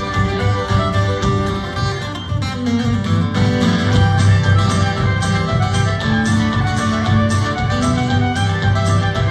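Fiddle playing an instrumental tune over steadily strummed acoustic guitar.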